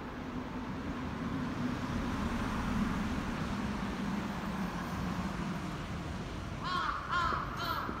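A steady low hum, then, two-thirds of the way through, a bird starts a quick series of repeated calls, about five in a row.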